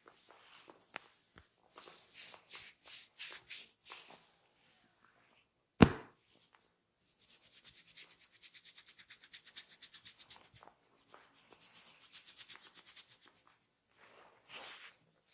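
Hands rubbing during a barber's massage. A few slow rasping strokes come first, then one sharp, loud smack about six seconds in. After it come two spells of fast rhythmic rubbing, about eight strokes a second.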